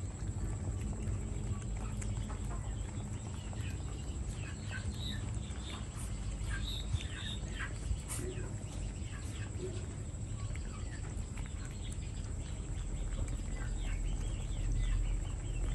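Puppies lapping milk from a plastic dish: many quick, wet licks and clicks, with a few brief high squeaks, over a steady low hum.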